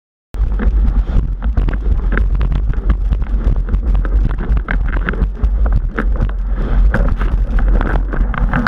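Wind buffeting the microphone of a camera on a slalom windsurfing rig as the board planes at speed, with the board slapping over chop and spray hissing. Starts abruptly just after the beginning and stays loud.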